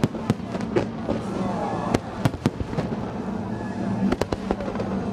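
Aerial fireworks bursting, a run of sharp, irregularly spaced bangs and crackles, with crowd voices underneath.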